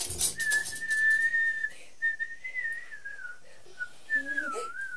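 Polish dudy bagpipe sounding one high, thin note, held with short breaks, then wavering and sliding down in pitch near the end.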